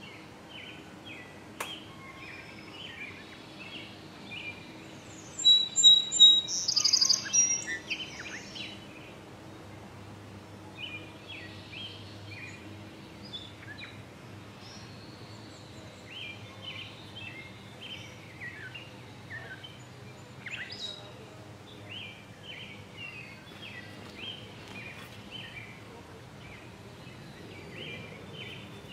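Small songbirds chirping repeatedly, short high notes scattered throughout, with one louder, closer burst of high calls about six seconds in.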